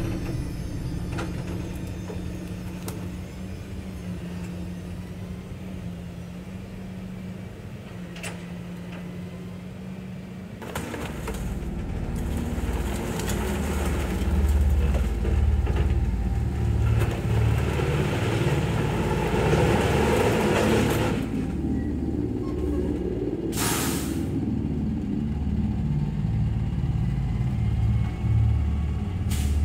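Heavy truck's diesel engine running, with a steady hum at first and a low rumble that swells about eleven seconds in as it works harder. There is a short, sharp hiss of released air about two-thirds of the way through.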